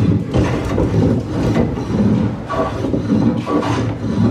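Small hand plane shaving a timber deck beam in quick repeated strokes, trimming down a high spot to fair the beam.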